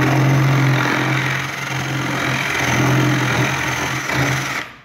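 A power drill with a hinge-cup boring bit cuts the round recess for a concealed cabinet hinge into a wooden kitchen cabinet door. The motor runs steadily, the bit chews through the wood, and the pitch sags slightly at moments under load. It stops shortly before the end.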